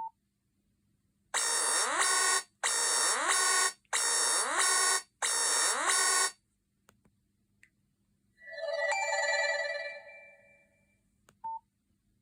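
Nokia 5220 XpressMusic phone's loudspeaker playing a preloaded ringtone: four loud electronic pulses with rising sweeps, about one and a quarter seconds apart, then a softer, shimmering tone that fades away. A short beep comes at the start and another near the end.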